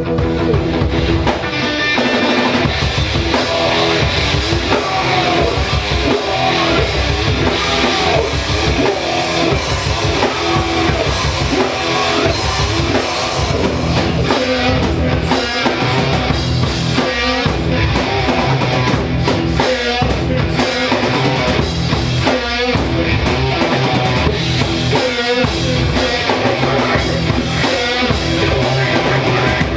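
Rock band playing an instrumental passage: a held chord, then drum kit and guitar come in together about a second and a half in and drive on steadily.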